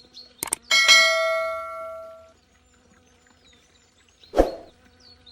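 A single metallic ding, struck once and ringing down over about a second and a half, just after two sharp clicks. A short hard knock comes near the end. Faint, repeated high chirps run underneath.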